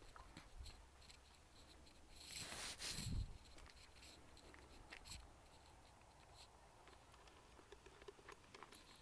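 Faint rustling and small clicks from a dog nosing among leafy crop plants, with a brief louder rush of noise about two and a half seconds in.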